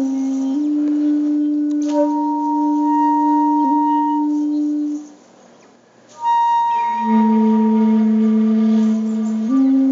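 Slow instrumental background music of long held notes that change pitch only every few seconds; it drops almost out for about a second midway, then comes back on lower notes.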